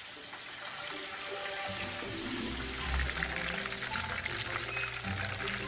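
Young Chinese mitten crabs ('June yellow') sizzling and crackling in hot oil during their second deep-fry. Soft background music comes in under it about two seconds in.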